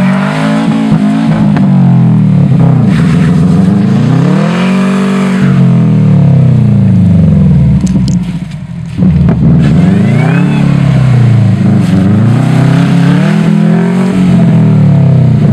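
2012 Subaru WRX's turbocharged 2.5-litre flat-four revving up and down again and again as the car works to pull itself out of deep snow, its pitch rising and falling every couple of seconds. The sound drops away briefly about eight seconds in, then comes straight back.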